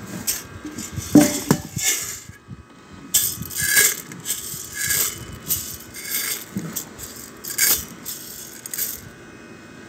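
Hard, dry grains rattling and rustling as a container is pushed through a pile of them and scooped up, in about eight uneven bursts, the loudest about a second in.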